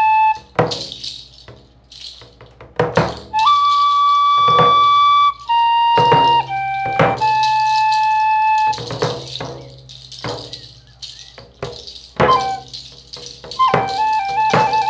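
Slow music: a flute holds long single notes that step from one pitch to the next, while a hand rattle is shaken in short single strokes every second or two.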